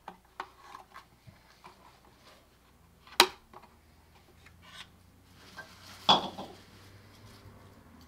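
Handling noise as a plastic bird-house camera unit and its cable are fitted into a wooden bird house: light clicks and taps, with two sharper knocks, one about three seconds in and the loudest about six seconds in.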